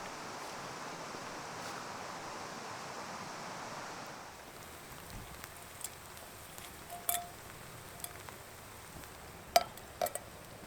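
Light metal clinks and taps, a few of them sharp with a brief ring, heard about halfway in and twice more near the end. Before them, for the first four seconds or so, a steady rushing noise.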